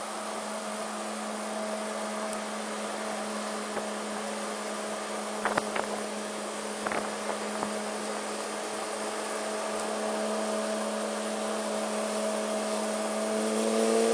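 Honda PCX150 scooter's single-cylinder engine running at a steady cruise under a haze of wind and road noise, with a few sharp knocks about five to seven seconds in. Near the end the engine note rises and grows louder as the scooter accelerates.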